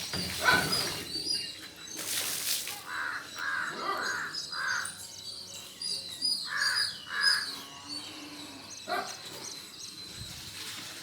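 Crow cawing: four short caws in quick succession about three seconds in, then two more a few seconds later, with small birds chirping faintly.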